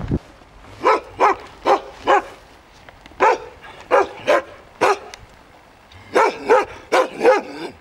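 A dog barking repeatedly in short, sharp barks. The barks come in uneven groups, with a faster run of about six near the end.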